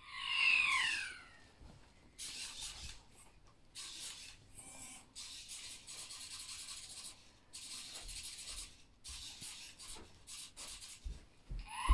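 LittleBits Space Rover toy robot: a falling electronic chirp from its speaker, then a series of hissing, whirring bursts of a second or so each as its small motors drive it across the carpet in short runs.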